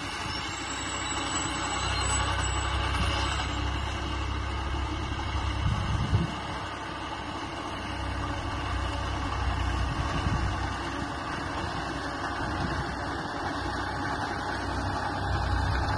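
Farm tractor's engine running steadily while mowing a meadow with a drum mower.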